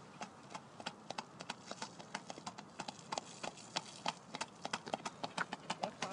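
Hoofbeats of a ridden Thoroughbred mare striking a hard farm track in a steady rhythm, about four strikes a second, a little louder and quicker toward the end.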